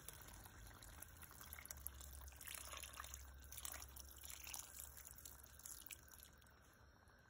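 A thin stream of water poured into a pot of braising oxtail stew, a faint splashing trickle as the braise's liquid is topped up. It tails off near the end.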